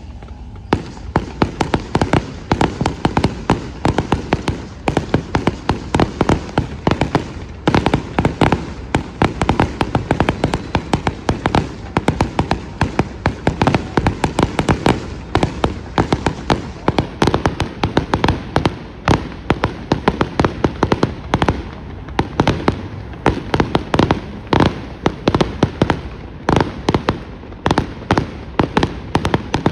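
Fireworks going off continuously: a dense, unbroken run of sharp bangs and crackles, several a second.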